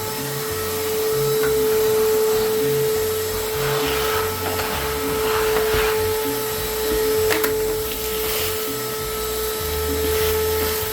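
Vacuum cleaner motor running with a steady whine, sucking up debris from demolition cleanup.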